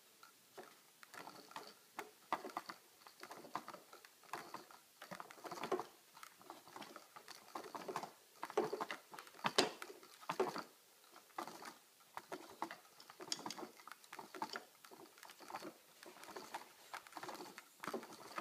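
Irregular light tapping and rustling in quick, uneven clusters, with a few louder clicks around the middle.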